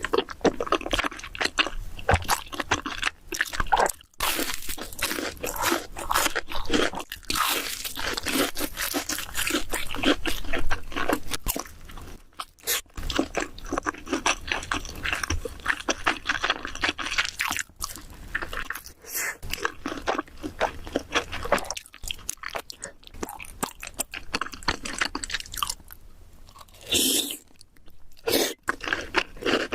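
Close-miked crunchy biting and chewing of food, a dense run of crackling crunches broken by a few brief pauses.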